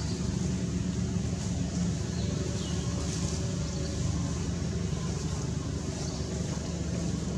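Steady low mechanical rumble, like an engine running in the background.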